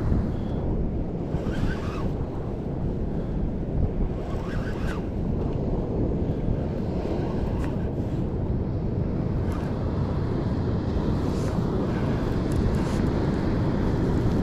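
Steady wind buffeting the microphone over the sound of the sea, with a few faint sharp ticks now and then.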